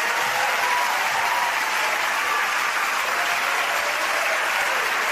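A large audience applauding steadily, with a few voices calling out over the clapping, in reaction to a punchline.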